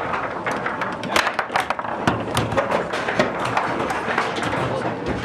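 Foosball table in play: a rapid, irregular run of sharp knocks as the hard ball is struck by the plastic players and hits the table.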